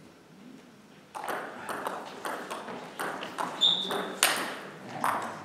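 Table tennis doubles rally: the ball clicking sharply off bats and table, about two hits a second, starting after a quiet first second. There is a brief high squeak midway, and the loudest hit comes about two-thirds of the way through.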